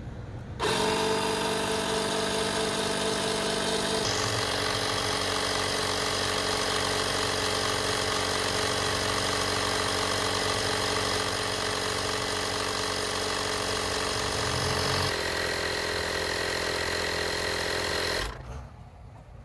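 12 V portable tire inflator's piston air compressor running steadily. It starts suddenly, shifts pitch twice and cuts off abruptly near the end.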